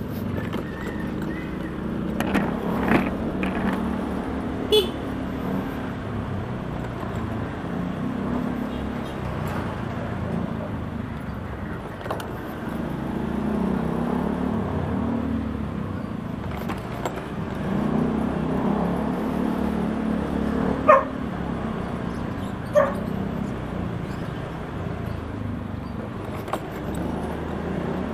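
Honda Beat 110 FI scooter's small single-cylinder engine running at low speed, its hum swelling and easing with the throttle, over road and wind noise. A few short, sharp sounds cut through, the loudest about two-thirds of the way in.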